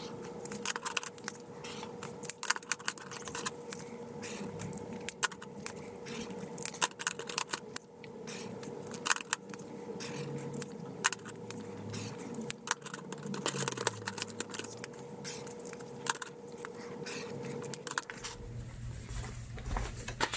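Passion Planner water-based highlighter markers stroked across planner paper in swatch after swatch, a soft scratchy drag of felt tips broken by many small clicks and taps of markers and caps being handled. Near the end the sound turns to a low rumble of the planner being handled.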